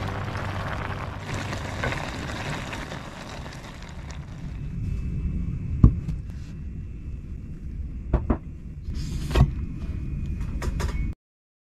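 Cooking and handling noise: a pot of ramyun broth boiling with a hiss at first over a steady low rumble, then a few sharp knocks as the pot and dishes are set down and handled on the table. The sound cuts off suddenly near the end.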